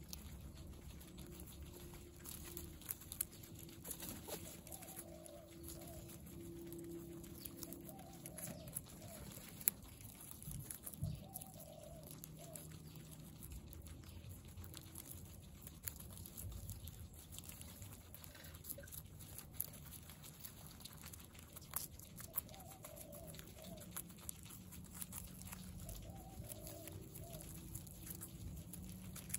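Guinea pigs chewing raw carrot slices, with many small, sharp crunches scattered throughout and short, soft guinea pig calls now and then.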